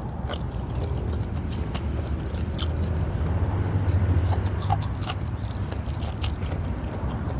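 Close-up chewing and biting of boiled okra eaten by hand, with many small sharp mouth clicks. A steady low rumble runs underneath, a little louder in the middle.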